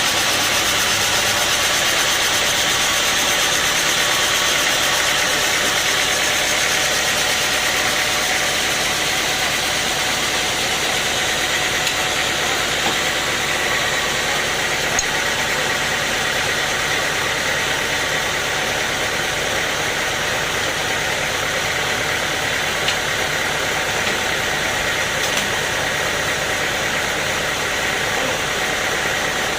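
Sawmill machinery running steadily with an even engine-like hum and hiss, with two small ticks, one about halfway through and one near the end.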